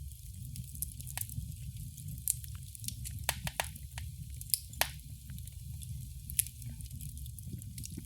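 Wood fire crackling in a fireplace: a steady low rumble of burning with irregular sharp pops and crackles. The loudest pops come in a cluster between about three and five seconds in.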